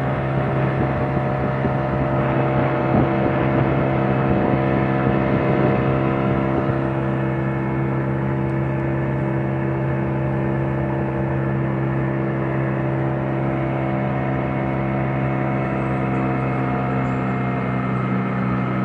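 Small boat's motor running steadily at cruising speed, an even drone that holds the same pitch throughout.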